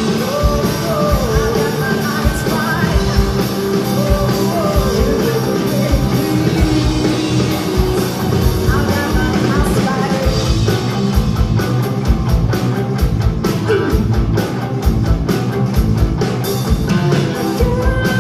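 Live rock band playing with a woman singing lead: drums keep a steady beat under electric guitar and keyboards.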